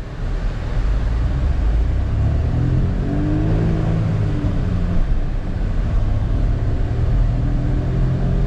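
Skoda Slavia's 1.0-litre three-cylinder turbo petrol engine under hard acceleration from near standstill, heard inside the cabin. The revs climb in first gear, drop at the shift into second about halfway through, then climb again.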